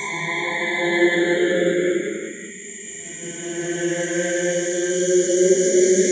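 Dark ambient horror drone: layered, held choir-like tones under a high airy hiss. It sinks about two and a half seconds in, then swells back up.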